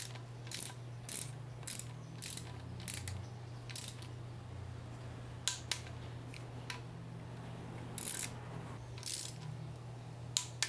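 Scattered light metallic clicks and ticks from hand tools and engine parts as timing-chain screws are run in on a BMW N20 engine, coming irregularly about one or two a second, over a steady low hum.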